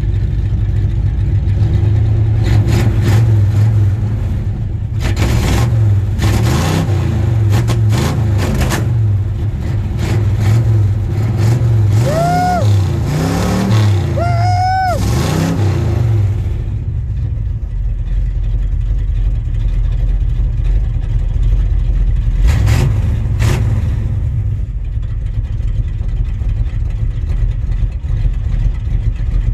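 1978 Chevrolet pickup's V8 engine running, with the throttle blipped several times in the first half so the revs rise and fall, a brief whine rising and falling with two of the revs. It then settles back to a steady low idle.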